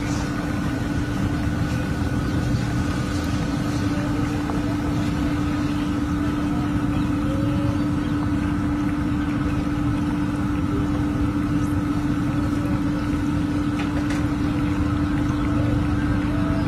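A steady mechanical drone with a constant low hum and a fainter higher tone, unchanging throughout.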